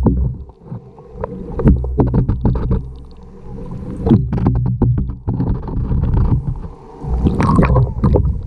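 Pool water heard through a GoPro held underwater: a muffled low rumble of water moving around the camera housing, with many scattered clicks and knocks. It grows louder and hissier near the end.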